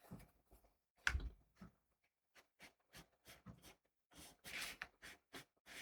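Watercolour brush working wet paint on paper: a string of soft, brief strokes and taps with short gaps between them.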